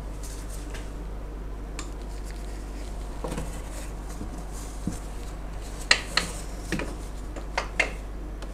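Scattered light metallic clinks and knocks of parts being handled by hand in a car's engine bay, a few of them close together near the end, over a steady low hum.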